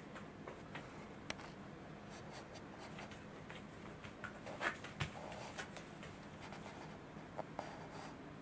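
Faint scratching and scattered small clicks over a low steady hum: one sharp click about a second in, a short cluster of louder scrapes and clicks midway, and two more light clicks near the end.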